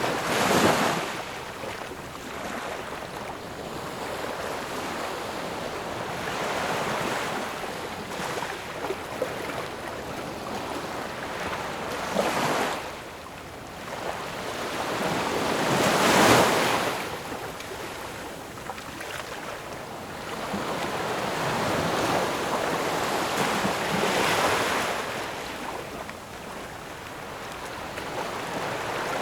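Ocean waves breaking and washing in, a steady rush of surf that swells every several seconds. The loudest wave crests about halfway through.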